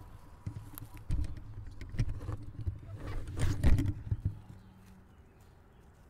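Irregular thumps, knocks and rustles of a pole-mounted microphone being handled and moved, with footsteps, loudest about three and a half seconds in and dying away about five seconds in.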